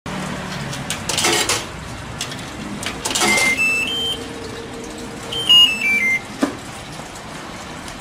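LG top-load washing machine's control panel: two short knocks, then a rising three-note electronic beep, a faint steady hum, and a louder falling run of about five beeps. No motor or drum sound follows: the washer's motor does not turn to weigh the load.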